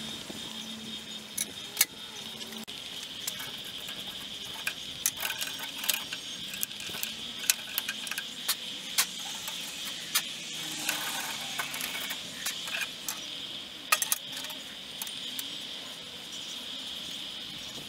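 Metal tools clicking and clinking as the bolts of a home-made bandsaw's blade guide are worked with a wrench and socket tools on its steel table. There are scattered sharp taps, a few of them louder, about four seconds in and about fourteen seconds in.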